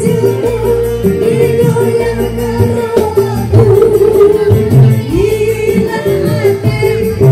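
A woman singing a folk-style song into a microphone with a live band that includes an electric guitar, amplified through PA loudspeakers.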